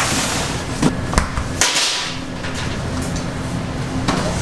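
Bakery kitchen work: two sharp knocks about a second in, then a short hiss, over a steady background hum.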